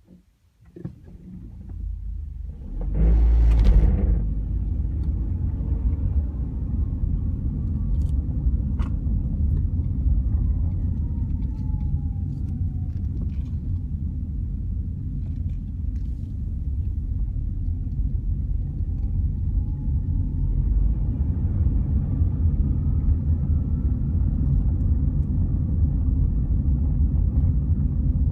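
2004 Honda Civic Hybrid pulling away and driving, a loud low rumble that starts about three seconds in with a brief louder surge, then carries on steadily, with a faint whine that slowly falls and later rises in pitch. The uploader puts the noise down to the transmission belt slipping, a common fault on this model.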